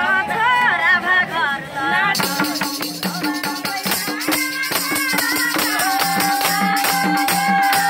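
Live Nepali dohori folk singing by voice, with a hand tambourine shaken in a steady jingling rhythm that comes in about two seconds in. Near the end the singer holds one long note.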